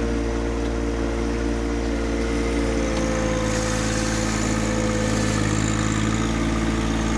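John Deere 1025R compact tractor's three-cylinder diesel engine running steadily as the front-end loader bucket pushes into a pile of topsoil. A hiss of soil scraping and sliding joins from about halfway through.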